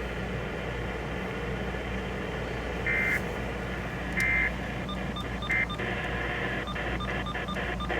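Weather radio emergency alert ending with three short, shrill data-burst tones a little over a second apart, the end-of-message code that closes a NOAA Weather Radio warning, over a steady hum and hiss. A run of short clicking pulses follows near the end.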